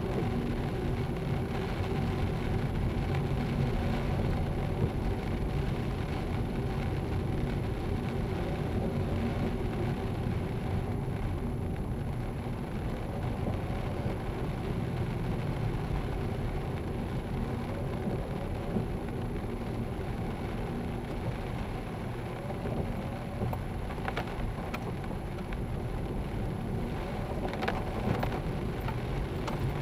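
Car driving on a wet road, heard from inside the cabin: a steady rumble of engine and tyres with rain spatter on the windscreen. A few sharp ticks come near the end.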